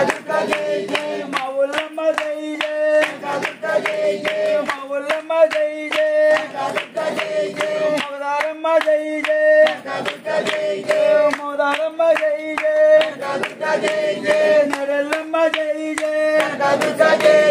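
Devotional group singing in the style of a bhajan, with a steady beat of hand claps keeping time under the voices.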